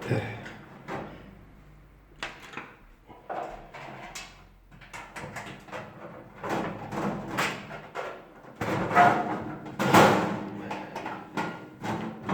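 Sheet-metal parts of an electric oven being handled and fitted back into place during reassembly: irregular knocks, clicks and scraping, loudest in the second half.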